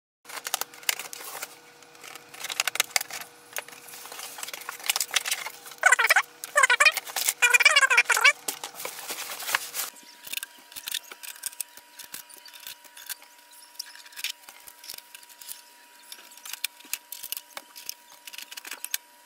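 Unboxing and unpacking noises from a new HP Envy Pro 6432 printer: rustling, clicks and handling knocks, with a loud run of squeaks about six to eight seconds in. After about ten seconds come lighter clicks and taps as the printer's lids and parts are handled.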